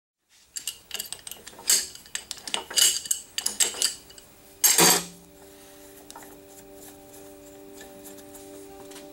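Cast-iron and steel parts of an old South Bend lathe tailstock clinking and clanking as it is handled on the bed, with one loud clank about five seconds in. After that, soft background music with long held notes comes in.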